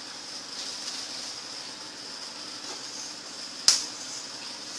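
A single sharp knock of a hard object, about three and a half seconds in, over a steady faint hiss.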